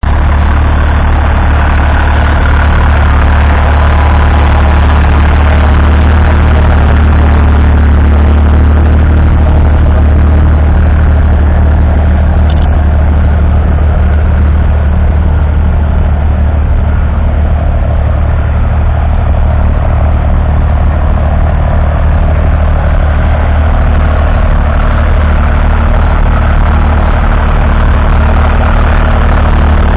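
The three-cylinder 2.4-litre diesel engine of a 1959 Fordson Dexta tractor, running steadily with a strong low hum as the tractor pulls a two-furrow mounted plough.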